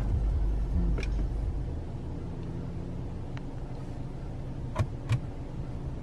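A few sharp clicks of a car's cabin controls being pressed over a low steady hum inside the car. The two loudest clicks come close together about five seconds in.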